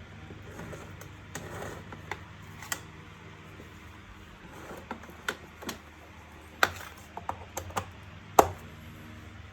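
Scattered clicks and knocks of small hard objects being handled, a dozen or so irregular taps, the loudest near the end, over a faint steady hum.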